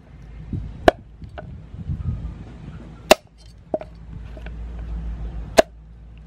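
Raw mud crab being chopped and broken apart with a cleaver on a wooden chopping board: five sharp knocks and cracks, the loudest about a second in, about three seconds in and near the end, with soft handling rustle between them.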